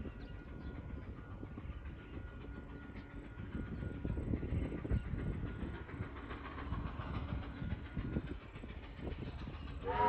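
Train running on the rails: a steady low rumble with irregular knocking and clatter. A pitched whistle starts right at the very end.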